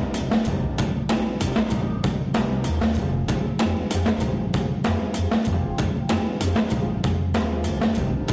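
Android ringtone playing: an instrumental loop with a steady drum-kit beat of several hits a second over a moving bass line.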